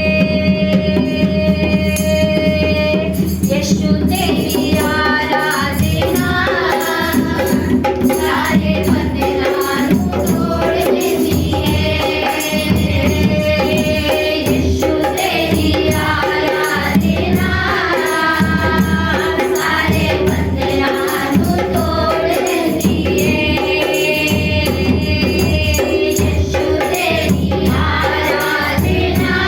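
A group singing a Hindi Christian worship song to instrumental accompaniment with a steady beat.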